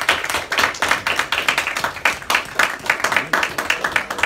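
A group of people applauding: many hands clapping quickly and steadily, thinning out near the end.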